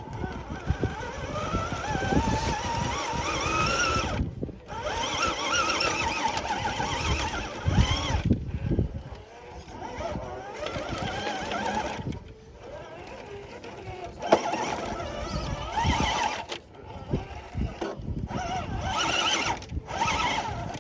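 Electric motor and gear drive of a radio-controlled scale rock crawler whining. The pitch rises and falls with the throttle, and it stops briefly several times.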